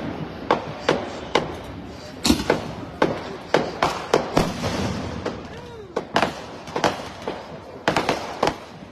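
Fireworks going off in an irregular string of sharp bangs and pops, sometimes several a second.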